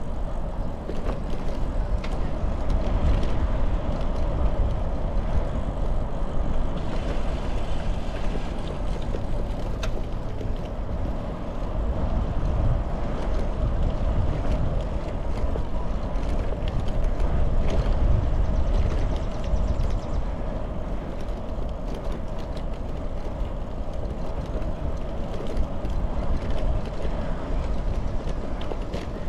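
Riding noise of a bicycle on a paved trail: wind buffeting the microphone with a low rumble, over a steady hum of tyres rolling on asphalt and a few faint ticks.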